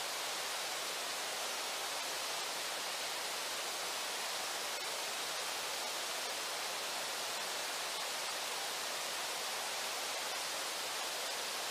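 Steady, even rush of flowing river water at Brooks Falls, unbroken, with nothing else standing out.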